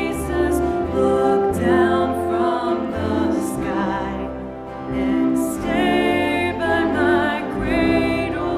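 Worship music: a voice singing with vibrato over sustained instrumental accompaniment and held bass notes.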